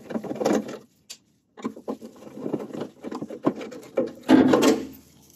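Screwdriver and gloved hands clicking and rattling against a Mk1 VW Rabbit Convertible's trunk lock and lid metal as its Phillips screws are undone and the lock is worked loose. There is a louder metallic rattle about four seconds in, as the lock assembly is pulled out.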